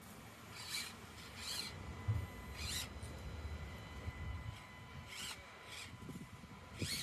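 Small 1:24-scale Axial SCX24 RC crawler driving over rock: a faint steady whine from its little electric drivetrain under a low rumble, with tyres scraping and scrabbling on the stone in about six short, scratchy bursts.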